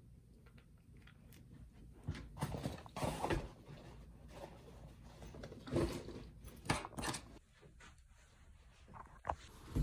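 Rustling and soft knocks of a backpack being handled while a charger is packed into it, in several short bursts.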